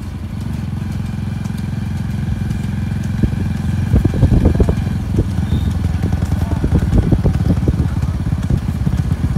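Motorcycle engine running steadily at road speed close by, a dense low chugging throughout, with a few short knocks about four seconds in.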